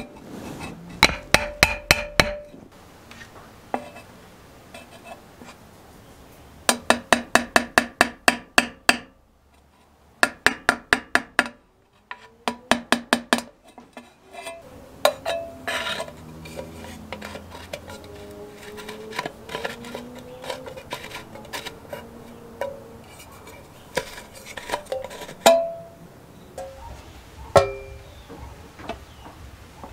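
A wooden stick knocking rapidly against the inside of a steel lawnmower fuel tank, about six ringing knocks a second in four short bursts. After these, softer clinks and scraping follow.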